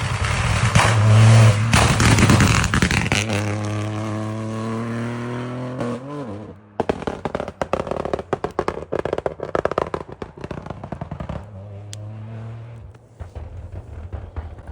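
Rally car passing at speed under full throttle, its engine note then falling away. About seven seconds in comes a rapid run of sharp crackles and bangs lasting several seconds, before the engine note steadies again near the end.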